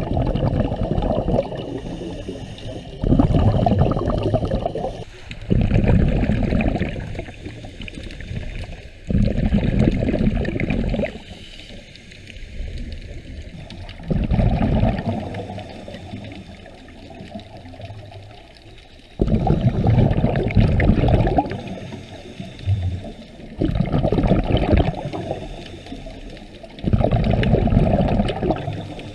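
A scuba diver breathing underwater: exhaled bubbles from the regulator rush past in loud bursts of a second or two, about every four seconds, with quieter stretches between.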